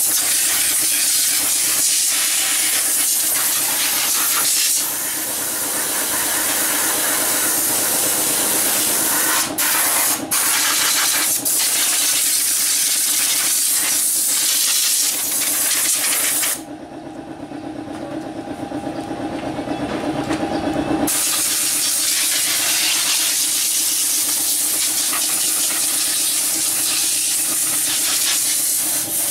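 Compressed air from a ½ HP compressor blasting through an air-duster gun into a PC case to blow out dust: a loud, steady hiss. The blast cuts out briefly twice about ten seconds in. Just past the middle it stops for about four seconds, leaving a lower steady hum, then starts again.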